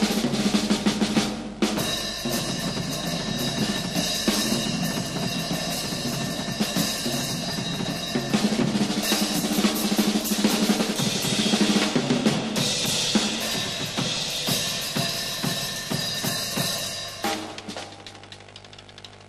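Live jazz drum solo on a full drum kit: fast snare-drum rolls and rimshots over bass-drum strokes. It stops abruptly about seventeen seconds in, and the sound falls much quieter.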